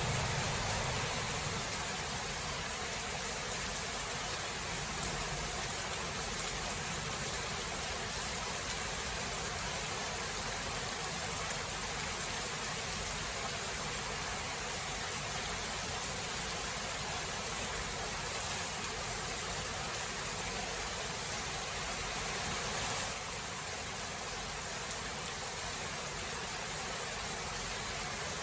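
Steady rain falling in a thunderstorm, an even hiss. A low thunder rumble dies away in the first couple of seconds, and the rain drops slightly in level near the end.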